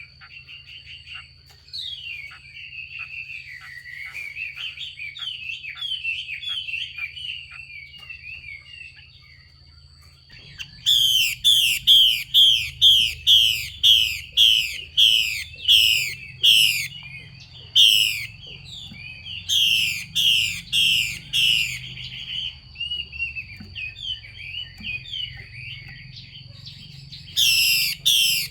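Female Chinese hwamei giving soft twittering notes, then, from about ten seconds in, loud runs of sharp downward-slurred 'xùy' calls at about two a second. This is the female call that keepers use to rouse male hwameis into song.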